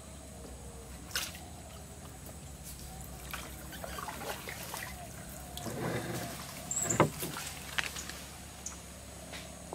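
Wooden canoe paddle dipping and pulling through calm water, with trickling and dripping from the blade, the strokes swelling about halfway through. A few sharp knocks, the loudest about seven seconds in, as the paddle strikes the canoe.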